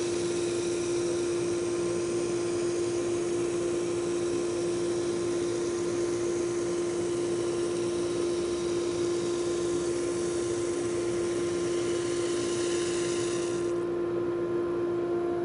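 SuperMax 19-38 combo brush/drum sander running with its wire-wheel brush head while a cedar board feeds through on the conveyor. A steady hum carries a hiss of wire bristles scouring the soft grain of the wood. The hiss stops about 14 seconds in as the board clears the head, and the hum drops away near the end.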